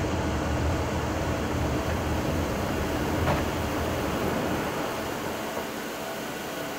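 Steady flight-deck noise of an Airbus A340-300 in the climb: a rush of air with a low rumble underneath, the rumble easing about two-thirds of the way through.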